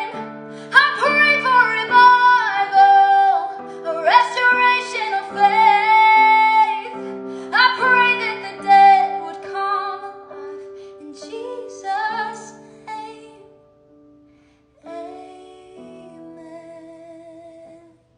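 A woman singing a slow worship song over soft instrumental accompaniment. The singing dies away about two-thirds of the way through, and a quieter closing passage follows that cuts off at the end.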